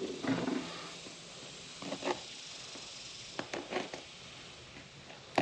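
A small cardboard box being handled on a wooden table, with a few scattered soft taps and scrapes as a small hand tool picks at its seal.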